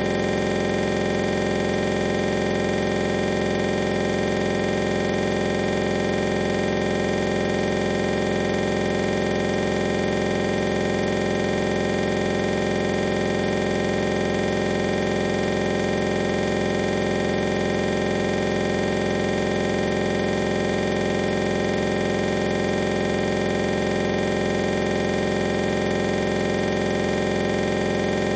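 A steady, unchanging electronic drone: a hiss with many fixed tones mixed in, running without a break or any change in level.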